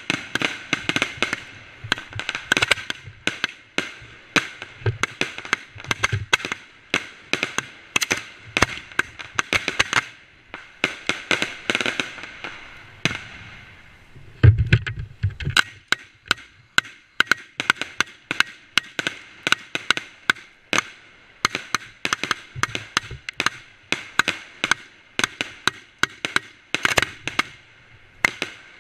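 Fireworks going off at close range: a dense, irregular run of sharp cracks and bangs, with stretches of hissing. The loudest hit is a heavier, deeper bang about halfway through.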